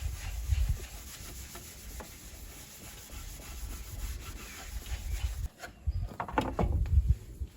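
A cloth rubbing over the freshly sanded wooden drawer, cleaning it ahead of waxing, with a few light knocks of handling near the end.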